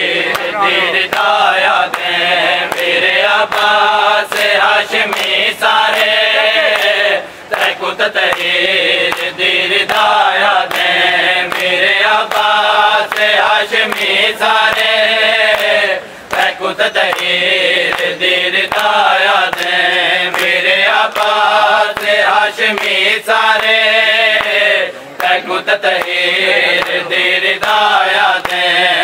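Men's voices chanting an Urdu nauha (mourning lament) over a steady beat of hands slapping bare chests in matam, with short pauses between lines.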